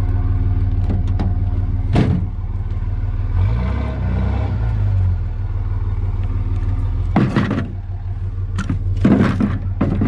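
Vehicle engine running steadily. Its pitch rises and falls briefly about four seconds in, and loud rattling knocks come about two seconds in and twice near the end.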